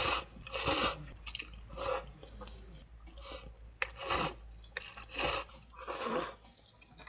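A person slurping ramyeon noodles and sipping broth: a string of short, noisy slurps about a second apart, with one sharp click a little under four seconds in.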